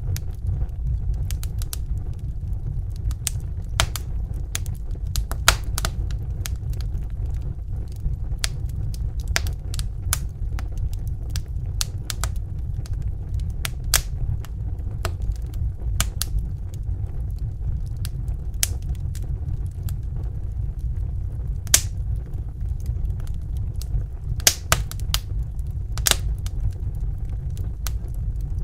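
Wood fire crackling, with irregular sharp pops and snaps over a steady low rumble of burning.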